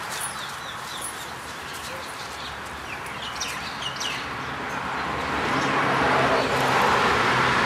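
Small birds chirping in short scattered calls over a steady rushing background. Over the last few seconds a motor vehicle's hum grows louder.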